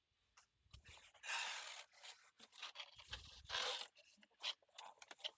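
Cardboard box and packaging being opened and handled: an irregular run of scrapes and rustles, with a couple of dull thumps as the box is moved.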